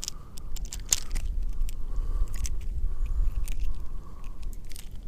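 Strong wind buffeting the microphone as a low rumble, with scattered sharp crackling clicks.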